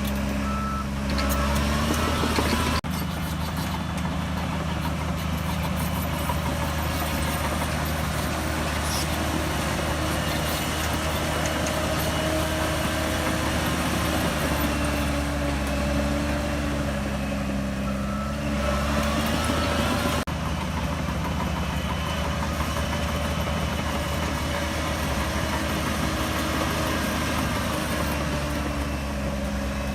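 Diesel engine of a Shantui DH17C3 bulldozer running under changing load, its pitch shifting up and down as it works. A reversing alarm beeps briefly near the start, again about two-thirds through, and once more near the end.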